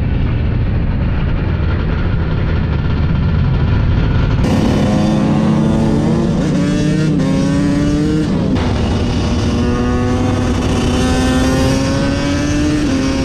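A pack of motorbike engines running together, loud and continuous. About four seconds in the sound turns brighter, and several engine notes climb slowly in pitch as the bikes rev and accelerate.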